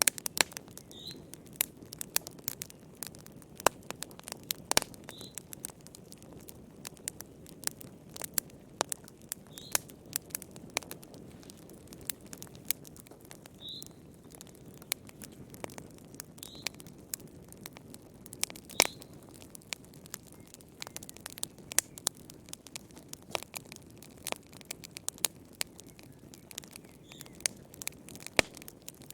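Wood fire in a fireplace crackling, with sharp irregular pops and snaps over a low steady rumble of burning. A faint short high chirp comes through every few seconds.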